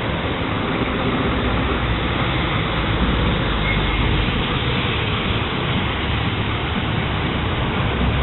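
Heavy thunderstorm rain, a steady even rush with no single drops or thunderclaps standing out.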